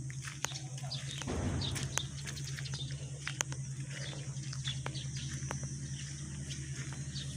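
Volvo EC200D excavator's diesel engine running steadily, with scattered sharp clicks and knocks and a short rumble about a second in. Birds chirp over it.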